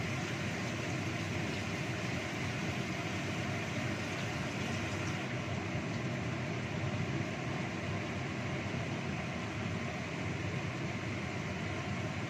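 Blended spice paste bubbling and sizzling in hot oil in a wok, over the steady whir of a kitchen cooker-hood fan.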